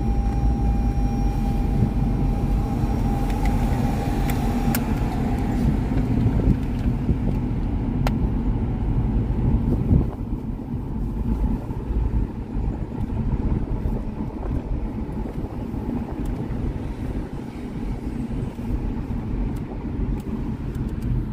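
Road and engine noise inside a moving taxi's cabin, a steady low rumble, with a faint steady tone in the first few seconds and a couple of light clicks; it gets somewhat quieter about halfway through.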